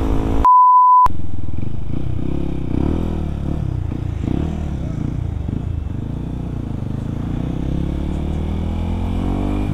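A half-second beep tone dubbed over the sound track, the loudest moment, then the Yamaha WR155R's single-cylinder engine running under way, its pitch rising and falling with the throttle and climbing steadily near the end.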